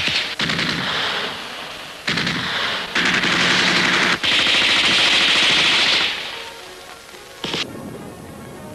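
Bursts of rapid machine-gun fire and gunshots, heaviest and continuous from about three to six seconds in, then dying down, with one short burst near the end.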